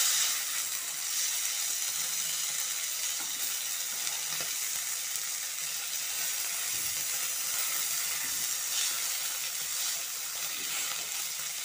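Boiled chicken pieces sizzling hard in ghee over a high flame in a nonstick frying pan, a steady hiss, with the pieces turned now and then with metal tongs.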